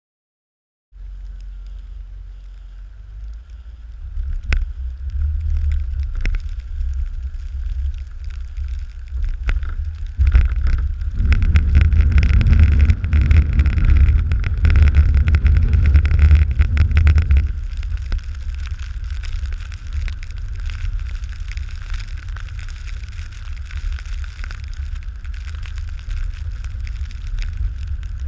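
Pickup truck running as it pulls a snow back blade, a steady low rumble with wind on the truck-mounted camera's microphone; it starts suddenly about a second in and grows louder for several seconds in the middle.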